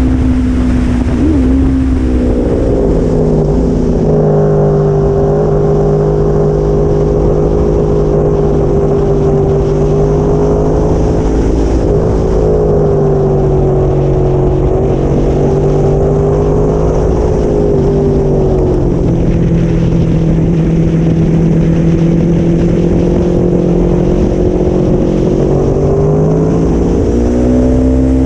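Aprilia Tuono motorcycle engine running hard at steady high revs, heard from an onboard camera, its pitch easing slowly up and down with the throttle and dipping near the end. Heavy wind rumble on the microphone underneath.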